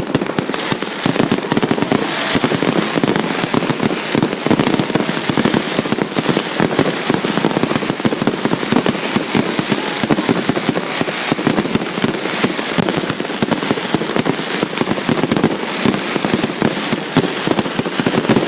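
Fireworks going off in a rapid, continuous barrage of bangs and crackles, many per second.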